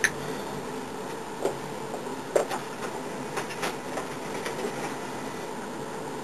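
Steady electrical hum and hiss, with a few light clicks and knocks as gear is handled.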